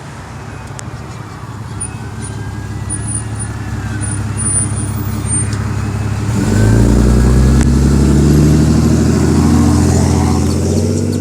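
Ambulance drawing closer, growing steadily louder, then its train horn sounds about six seconds in: a deep chord of several notes held for around four seconds before it eases off.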